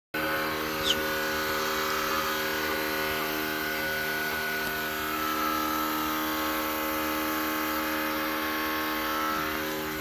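1978 Ford F-250's engine running steadily at an even speed, with a brief high falling chirp about a second in.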